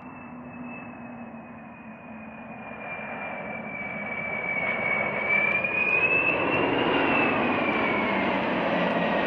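Four jet engines of a Boeing 747 Supertanker growing louder as it flies low overhead. A high engine whine dips slightly, rises to a peak about seven seconds in, then falls as the plane passes, over a steady rushing roar.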